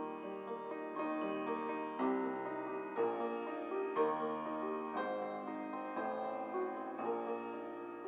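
Solo grand piano playing a slow, gentle piece, with new chords struck about once a second and left to ring.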